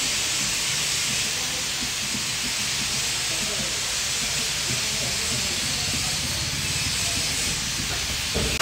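A steady, even hiss with faint voices underneath.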